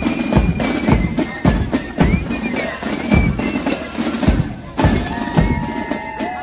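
Music led by drums: a bass drum beats about twice a second under a few held higher notes.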